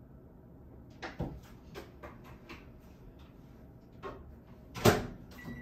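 A string of short clicks and knocks from objects being handled, starting about a second in, with one sharper, louder knock near the end.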